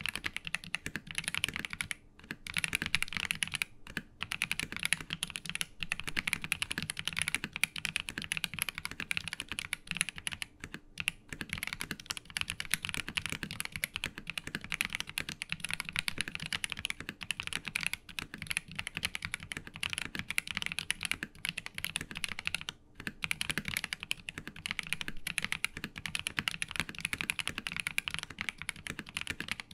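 Typing on a Monsgeek M3 mechanical keyboard fitted with YUNZII Milk linear switches, factory-lubed: a dense, steady run of keystrokes broken by a few brief pauses.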